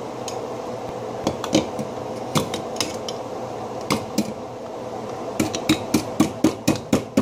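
A metal kitchen utensil knocking against ice frozen in a metal pitcher, trying to break it loose: about a dozen sharp, irregular clinks, coming faster in the second half, about three a second near the end.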